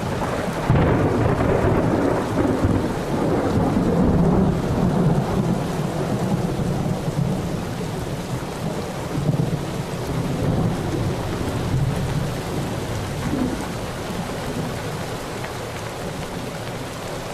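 Thunderstorm: a long roll of thunder over steady rain. The rumble sets in about a second in, is strongest over the next few seconds, and then slowly dies away under the rain.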